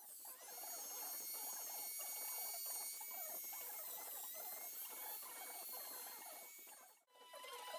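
Handheld electric rotary carving tool whining steadily at high speed while its bit scrapes and grinds into the wood in quick rasping strokes. The sound drops out briefly about seven seconds in.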